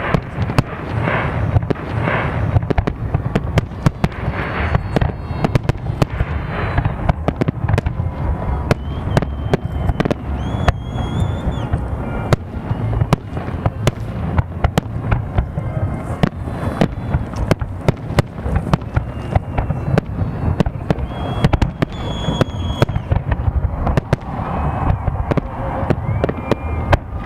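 Fireworks salute: a continuous barrage of booming and crackling bangs, dense and rapid, with a few short high tones sounding over it.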